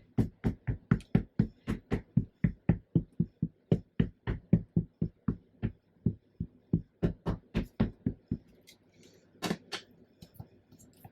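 Ink pad tapped over and over onto a rubber stamp to ink it, sharp even taps at about three to four a second for some eight seconds. After the taps stop there is a brief rustle of paper.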